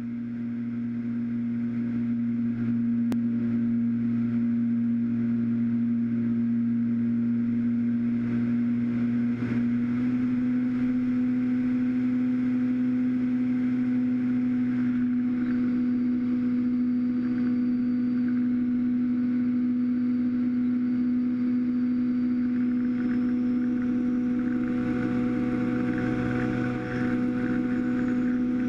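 Brushless electric motor and pusher propeller of a Skyhunter FPV plane, heard from the onboard camera, running at steady cruise throttle with an even, humming drone. The pitch steps up slightly about ten seconds in.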